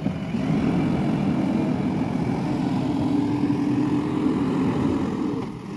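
Diesel engine of a JCB 3DX backhoe loader running under load as the machine drives across the site; the engine note rises about half a second in, holds steady, and drops away near the end.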